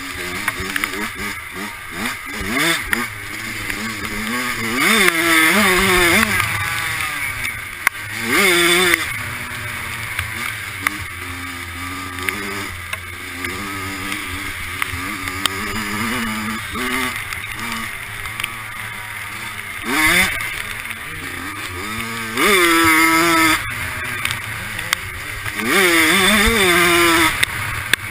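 Dirt bike engine revving hard and backing off again and again while being ridden, the pitch climbing in several full-throttle bursts, over a steady low rumble.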